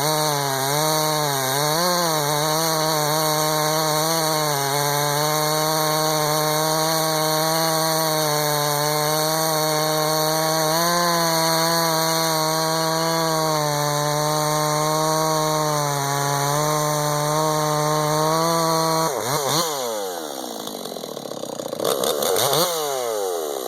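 Ported Husqvarna 350 chainsaw with a 353 top end, bored-out carb, advanced ignition and dual-port muffler, running at high revs while cutting hard ash. The engine note wavers for the first few seconds, then holds steady under load. Near the end the revs drop away and the saw is revved up and down once more.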